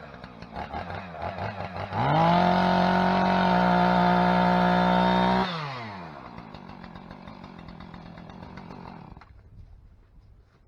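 Chainsaw revved from a low idle up to a steady, loud full-throttle whine for about three and a half seconds. It then drops back down and idles more quietly before stopping.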